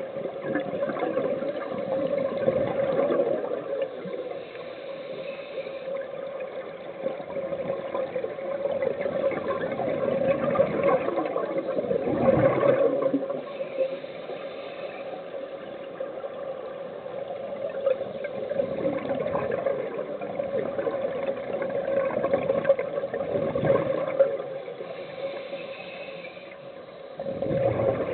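Scuba diver breathing through a regulator underwater: rushing swells of exhaled bubbles every several seconds, over a steady hum.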